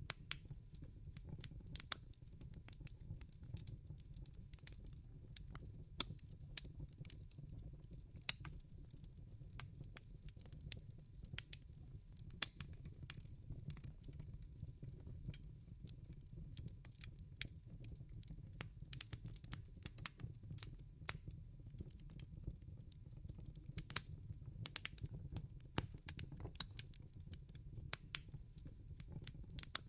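Wood fire crackling in a fireplace: irregular sharp pops and snaps, a few much louder than the rest, over a low steady rumble.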